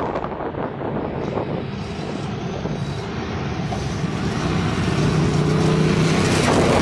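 A group of motorcycles, mostly Ducati V-twins, riding toward and past the listener, their engines getting steadily louder as the column comes closer.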